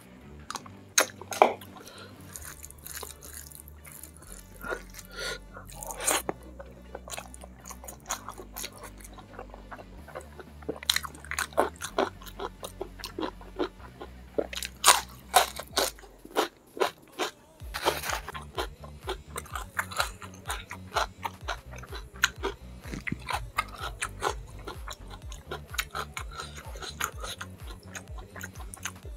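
Close-miked eating sounds: crisp crunching bites and chewing of raw vegetables such as bitter gourd, with wet mouth sounds between them. Quiet background music plays underneath, with a low pulsing beat coming in about two-thirds of the way through.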